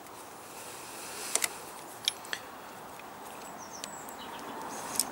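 Sharp metallic clicks of a screwdriver working the pivot bolt out of a Honda CBF1000 clutch lever: two quick pairs about a second and two seconds in, and one more near the end. Under them a steady outdoor hiss with faint bird chirps.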